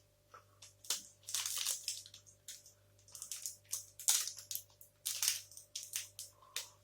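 Close-up chewing of a dark chocolate protein bar: irregular wet mouth clicks and smacks in short bursts every half second or so. The bar is a bit hard to chew and dry.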